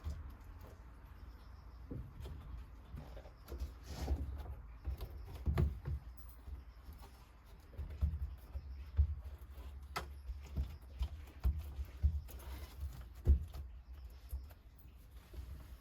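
Irregular light knocks and clicks over a steady low rumble.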